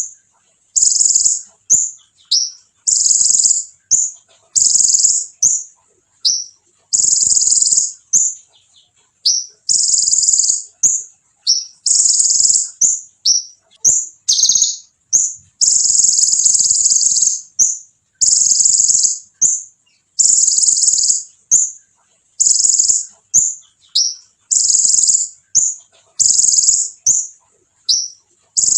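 Konin (kolibri ninja) sunbird singing a loud, high-pitched song: rapid trills repeated about once a second, each followed by short down-slurred notes.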